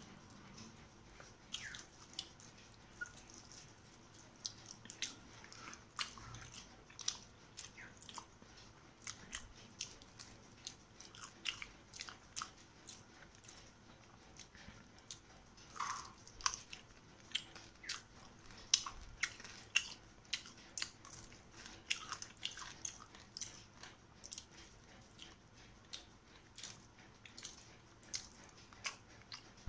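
Close-up chewing of rice and rohu fish curry eaten by hand: many short, irregular mouth clicks and smacks, several a second.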